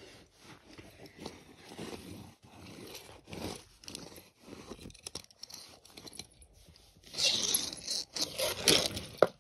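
Scraping and rustling of close handling as die-cast toy cars are picked up and moved over a rug, faint at first and louder from about seven seconds in.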